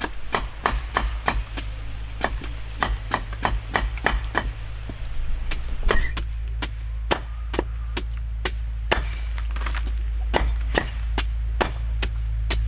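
Steel cleaver chopping a cassava root into thin slices on a wooden block: quick, even chops about three a second, with a couple of brief pauses.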